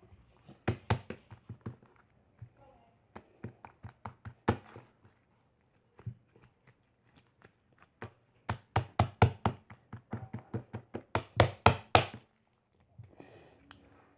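Slime being handled roughly: sharp slaps and smacks of the slime against hands or a surface. There is a short run of them near the start, a few scattered ones in the middle, and then a fast run of several slaps a second for the last few seconds before they stop.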